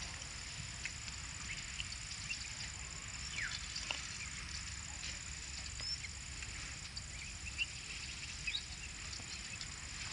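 Open-field ambience: a steady high-pitched insect drone, with scattered short bird chirps and calls over a faint low rumble.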